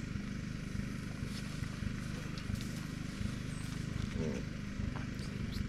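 Breaded fish fillets sizzling in hot oil in a skillet over a campfire, with a few sharp crackles. Under it runs a steady low motor hum.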